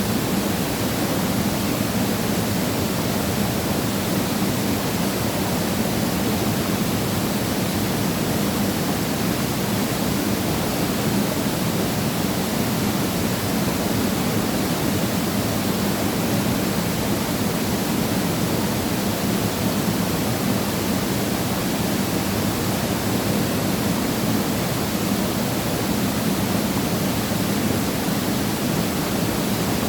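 Yongji Falls, a mountain waterfall, with water pouring and splashing in a steady, even rush that does not change.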